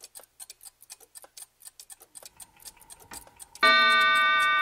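Mechanical clock ticking steadily and quickly. About three and a half seconds in it strikes once: a single bell-like chime that rings on and slowly fades.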